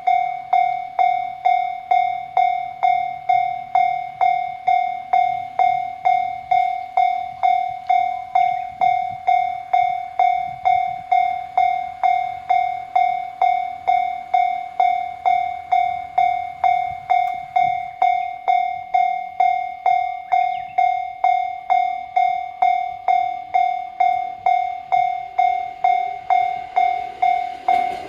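Japanese railway level-crossing alarm sounding its repeated electronic 'kan-kan' bell tone, about two strikes a second, each one sharp and then fading. A faint low rumble runs underneath.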